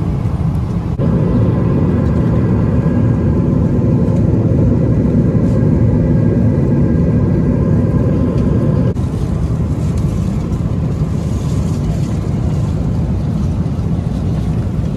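Steady cabin noise of a Boeing 777 airliner in cruise: a low rushing drone of airflow and engines with a faint steady hum above it. It gets louder about a second in and a little quieter after about nine seconds.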